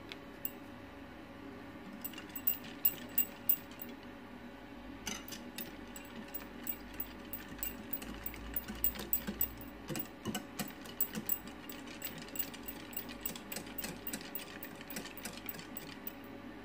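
Wire whisk beating cream in a ceramic bowl: a few clicks, then from about five seconds in a fast, regular clicking of the wires against the bowl that runs on until near the end.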